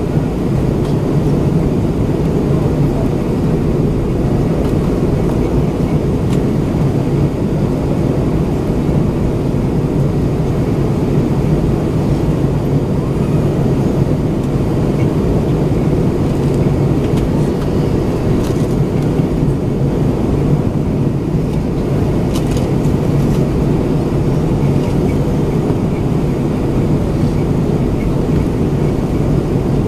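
Steady cabin noise of an Airbus A320-232 in descent, heard from inside the cabin behind the wing: the even drone of its IAE V2500 engines with the rush of air along the fuselage and a steady low hum.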